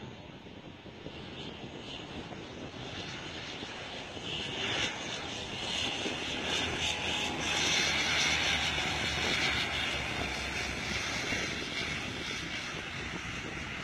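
Twin-engine turboprop airliner's engines and propellers droning as it comes in low to land and passes. The sound grows louder to a peak about eight seconds in, then eases off.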